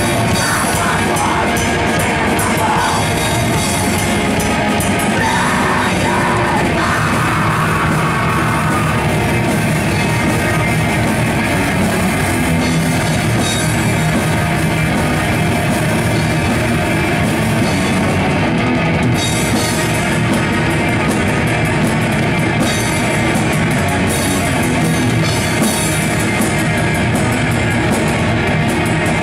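Black metal band playing live: heavily distorted electric guitars over a full drum kit, loud and dense without a break.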